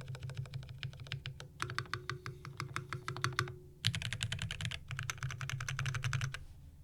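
Fast typing on a Kepler FC65 mechanical keyboard with lubed Gateron Black Ink linear switches in an aluminium plate and GMK keycaps. The keystrokes come in quick runs with two short pauses and stop shortly before the end.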